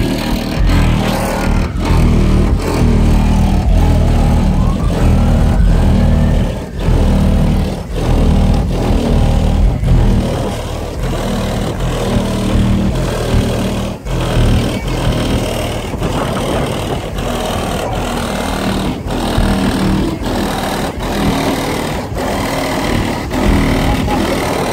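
Bass-heavy music played loudly through a custom car audio system's subwoofers in a Chrysler Town & Country minivan, the low bass notes changing in steps, with a short rising tone about five seconds in.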